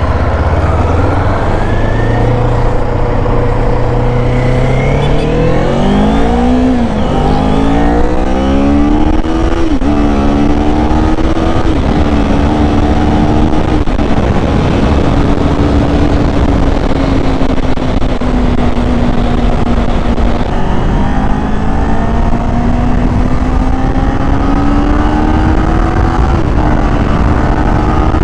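Kawasaki Z400's parallel-twin engine through its stock muffler, revving up through the gears in the first ten seconds or so, the pitch dropping at each upshift, then cruising steadily. Wind buffets the microphone.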